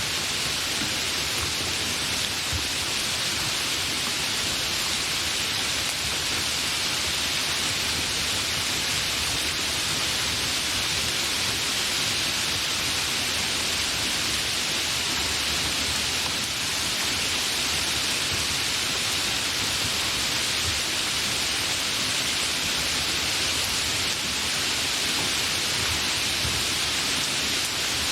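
Steady, somewhat heavy rain without thunder: an even, unbroken hiss with no single drops or rumbles standing out.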